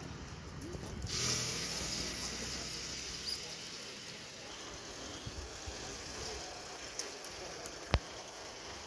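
Roadside outdoor ambience: a steady hiss over a low traffic rumble that fades after the first few seconds, with a few faint ticks and one sharp click near the end.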